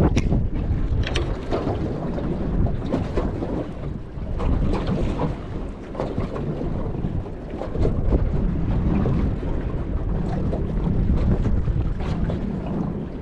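Wind buffeting the microphone: a steady low rumble that rises and falls in gusts, with a few light knocks.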